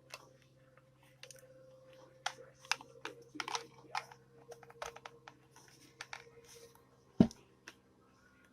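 Small clicks and taps of objects being handled, with one louder knock about seven seconds in, over a faint steady hum.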